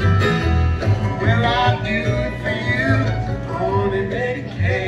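Acoustic string band playing live in a bluegrass style, with strong bass notes under plucked strings and a bowed or sung melody line, in the closing instrumental bars of a song. The music drops away right at the end.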